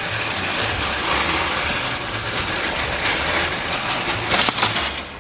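Empty shopping cart being pushed over a parking lot, its wheels and wire basket rattling steadily, with a burst of louder clanks about four seconds in.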